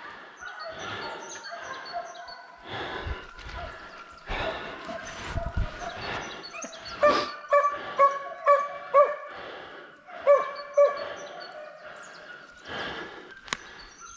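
Hunting dogs barking and yelping, with a quick run of loud sharp barks about halfway through and two more shortly after, over the rustle of footsteps in dry fallen leaves.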